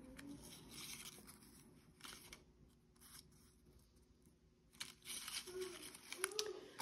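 Faint rustling and light taps of cardstock paper dress embellishments being shuffled and stacked by hand, quieter in the middle and picking up again near the end.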